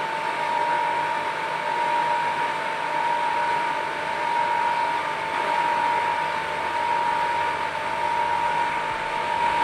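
Sanitizer pump motor running steadily, switched on through the timer's relay during a sanitizing cycle: a constant high whine over an even hiss.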